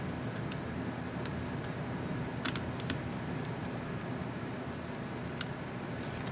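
Small sharp plastic clicks, about nine scattered irregularly with a close pair near the middle, from handling and fitting an Asus X550C laptop's Enter keycap and its mechanism, over a steady low hum.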